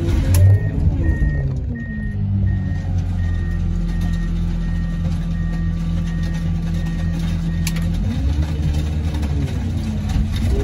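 A heavy machine's engine is running, its revs dipping early, holding steady, then rising and falling back near the end. Over it a reversing alarm beeps about twice a second, and there is a sharp metal clank about half a second in.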